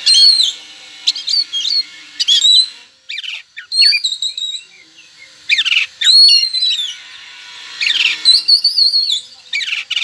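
Oriental magpie-robin (white-breasted kacer) singing loudly in short phrases: clear whistles that arch up and down, quick downward-sweeping notes and scratchy notes, with brief pauses between phrases.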